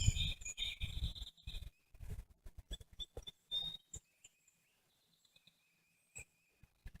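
Birds chirping in the background, short high calls coming and going, with scattered sharp clicks and a low rumble in the first two seconds.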